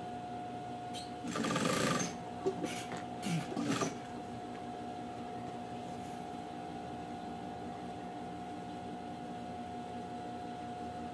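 Electric sewing machine running steadily, stitching layered strips of knit fabric into a rug, with an even hum throughout. Between about one and four seconds in come a few louder scratchy, rustling noises over it.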